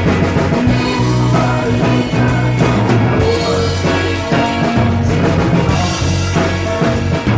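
Rock band playing a song, with drums, bass and guitar, and cymbal strokes keeping a steady beat.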